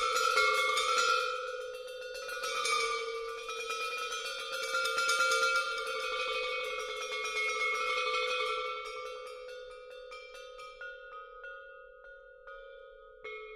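Percussion quartet playing metal instruments: a dense stream of rapid stick strikes on towel-damped cymbals and metal pipes over ringing pitches and a sustained tone. After about nine seconds it thins out to sparse single strikes.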